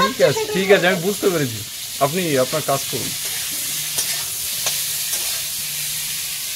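Oil sizzling steadily in an aluminium kadai as whole potatoes and eggs fry, with a spatula stirring and turning them and a couple of light clicks against the pan about four to five seconds in.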